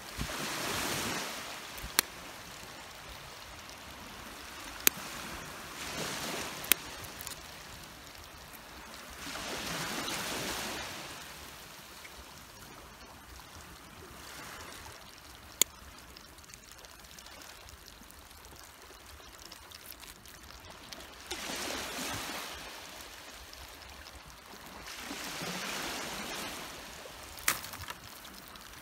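Small sea waves washing in on the shore in slow swells every few seconds, each a soft rush of a second or two. A few sharp clicks stand out between them.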